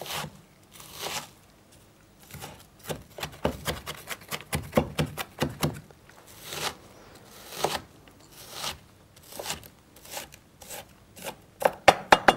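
A chef's knife chopping sliced onion finely on a wooden cutting board: runs of quick, irregular knocks with short pauses between them, and a louder flurry near the end.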